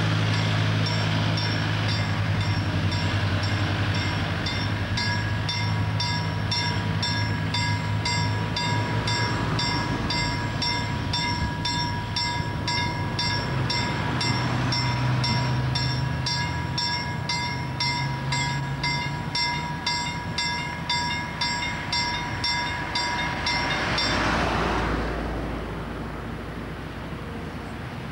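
Level-crossing warning bell ringing in a steady rhythm of about two strikes a second, the warning that a train is approaching and the barriers are down. A low steady hum runs underneath, and the bell stops abruptly about 24 seconds in.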